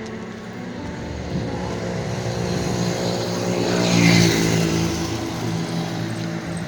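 A car passing close by, getting louder to a peak about four seconds in and then fading.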